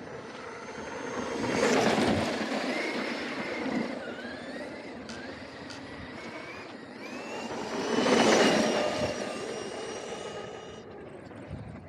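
Traxxas XRT 8S RC monster truck's brushless electric motor whining, rising and falling with the throttle, over the noise of its tyres churning dirt. It gets loud twice as the truck passes close, about two seconds in and again about eight seconds in.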